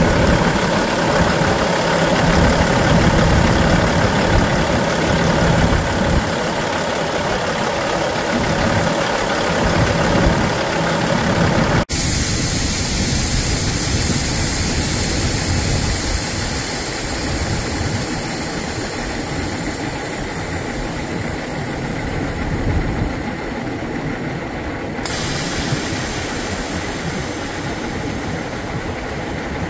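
2008 Peterbilt 388's Caterpillar diesel engine idling steadily. It is heard close up at first; after a cut about twelve seconds in, it is quieter and more distant.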